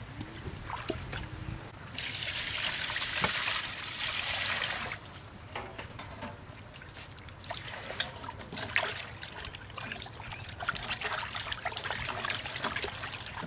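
Water in a stainless-steel basin being sloshed and splashed by hands washing raw pork stomach. A steady rush of running or poured water lasts about three seconds near the start, then come irregular small splashes and drips as the tripe is squeezed and rubbed in the water.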